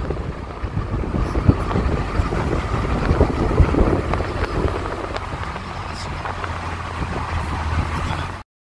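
A car driving: steady engine and road noise with a low drone. It cuts off abruptly shortly before the end.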